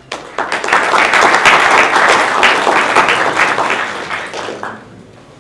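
Audience applause: many people clapping at once, starting suddenly, holding strong for about three seconds, then dying away about four and a half seconds in.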